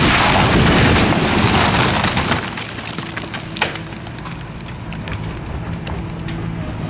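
Old wooden barn collapsing: a loud rushing crash of timber and roofing that dies away about two and a half seconds in, then scattered cracks and snaps of splintering wood, one sharp crack standing out. A steady engine hum continues underneath.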